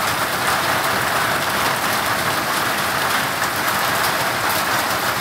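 Rain and hail falling steadily in a dense, even patter.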